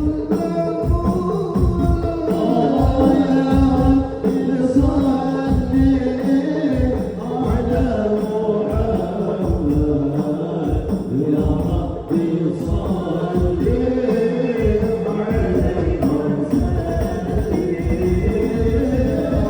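A male voice singing a sholawat, an Islamic devotional praise song, in long drawn-out melodic phrases over a steady beat of hand drums.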